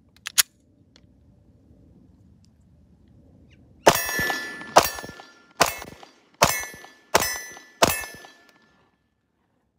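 Six 9mm shots from a Walther PPS M2 pistol, a little under a second apart, each followed by a ringing clang of a hit on a steel target. The six-round magazine is emptied, and the slide does not lock back after the last shot. Two quick clicks come just after the start.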